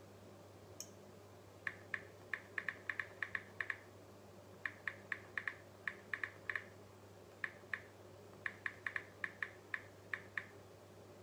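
Smartphone on-screen keyboard clicking as someone types a message, in quick runs of taps with short pauses between, over a low steady hum.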